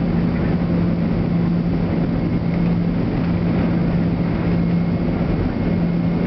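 Boeing 767-300ER's jet engines heard from inside the cabin over the wing as the airliner taxis: a steady drone with a constant low hum under it.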